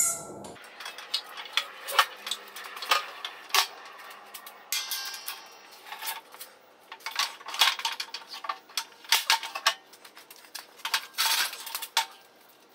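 Steel pallet jack clanking and rattling as it is wrestled out of a shop press and set down, with many irregular sharp metal knocks and clinks. A falling, horn-like chord of tones cuts off about half a second in.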